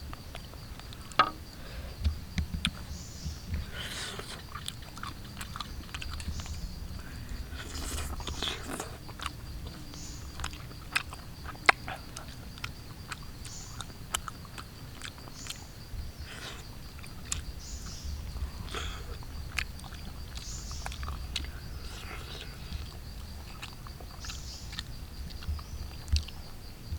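A person biting and chewing cooked eel, with irregular wet smacks and small crunches, a few of them sharply louder.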